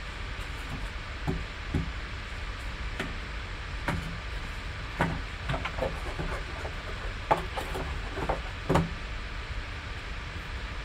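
A scatter of light taps, clicks and rubbing as gloved hands handle trading cards and a cardboard card box, with two sharper knocks near the end, over a steady low hum.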